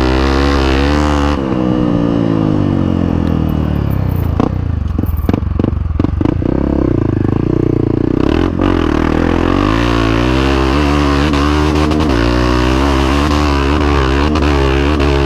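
Honda CRF 250F's single-cylinder four-stroke engine, breathing through a Belparts aftermarket exhaust, running under load: the revs drop off about a second and a half in, a run of clattering knocks comes in the middle, then the engine pulls back up and holds higher revs.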